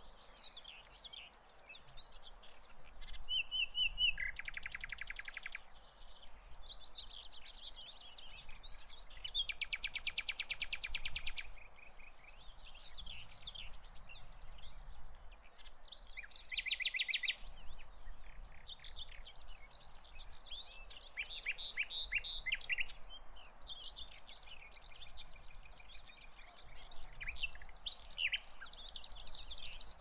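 Several songbirds singing and chirping together, with short whistled phrases and a few rapid, fast-pulsed trills (about four, ten and seventeen seconds in), over a faint steady outdoor hiss.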